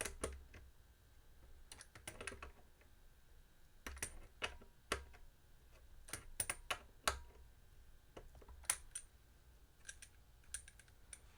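Irregular light clicks and taps of small metal hardware and hand tools, a dozen or so spread unevenly, as a guitar's potentiometers are fastened and parts are handled on the bench.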